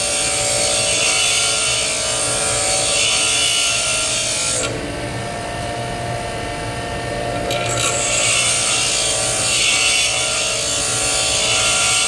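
Bench grinder running, with a steel lathe bit pressed against its grinding wheel: a steady rasping grind over the motor's hum. The grinding stops for about three seconds near the middle while the wheel keeps spinning, then starts again.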